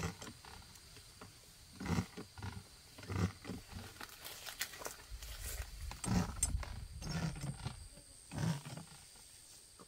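Irregular rustling and low thumps of a person working and moving through grass and coffee bushes, coming in short bursts several times.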